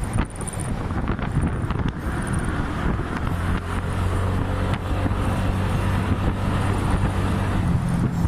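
Motor scooter engine running steadily while being ridden at speed on the road, with the engine note climbing higher near the end.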